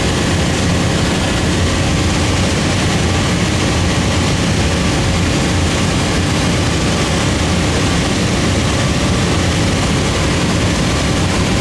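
Cessna 172's piston engine and propeller running steadily in flight, heard inside the cabin as a constant loud drone mixed with rushing air noise.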